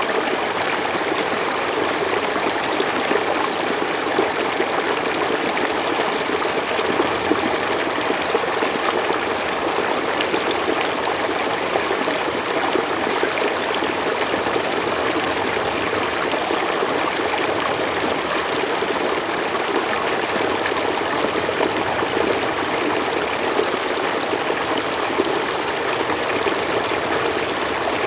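A river or stream flowing over rocks, a steady rushing and burbling of water without letup.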